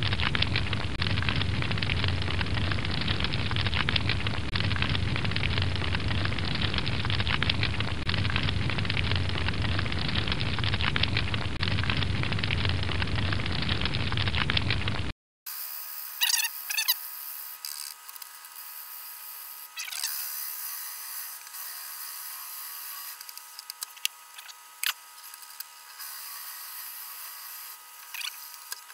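A dense, crackling fire-like noise with fine ticks runs for about fifteen seconds, then cuts off. A wood lathe follows, running with a steady whine while a turning gouge cuts a spinning walnut blank, with scraping and occasional sharp ticks as shavings fly.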